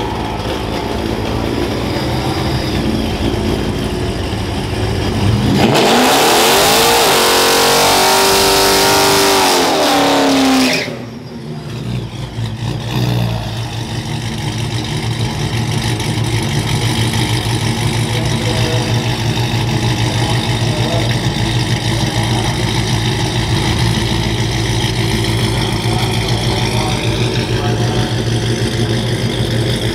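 Ram 1500 drag truck's engine running, then about five seconds in it revs hard with a loud rush, its pitch climbing in steps, before cutting off suddenly. It is followed by an engine idling steadily.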